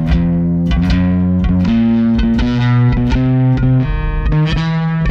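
Warwick Vampyre SN-5 five-string electric bass on its neck pickup, played through a Neural DSP Quad Cortex amp-modeller's Brute Bass preset. It plays a line of plucked notes, each one sustained and rich in overtones, with the pitch changing every half second to a second.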